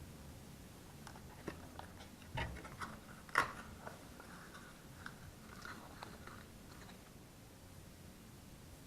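Baking soda being added to grated laundry soap: a few short crunches and clicks in the first three and a half seconds, the sharpest about three and a half seconds in, then faint soft rustling.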